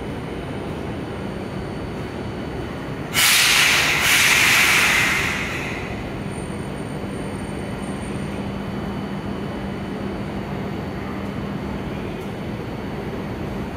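Santram low-floor tram standing at a platform with a steady low hum, broken about three seconds in by a loud hiss of released compressed air lasting about two and a half seconds, with a short dip partway through.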